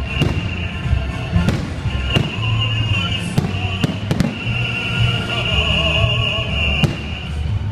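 Festive fireworks salute going off in a series of sharp bangs about a second apart, over music.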